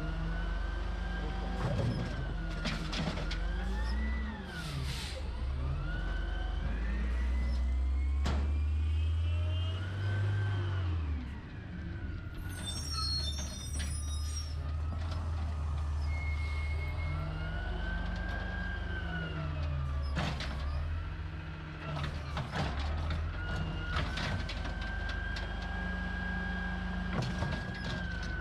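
Garbage truck engine revving up and down, with scattered knocks and clanks and a short hiss of air released about twelve seconds in, typical of an air brake.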